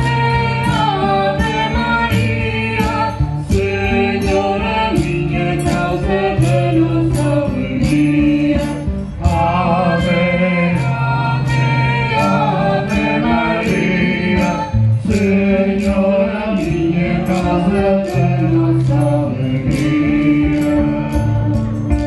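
Folk ensemble of cavaquinhos, acoustic guitar and drums playing a hymn tune with a steady strummed beat, about three strokes every two seconds.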